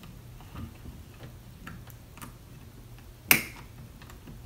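Small scattered clicks and taps from hand tools and small parts being handled while a battery terminal is worked into place, with one loud, sharp snap about three seconds in.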